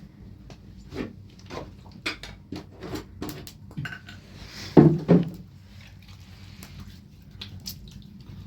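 Dishes and utensils being handled: a string of clinks and knocks, the loudest two close together about five seconds in.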